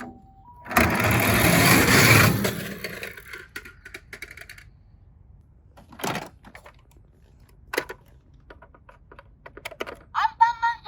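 A loud clatter of many die-cast toy cars tumbling and rolling down a plastic slide, lasting about two seconds and trailing off, then a few scattered single clicks. Near the end a warbling electronic tone starts up.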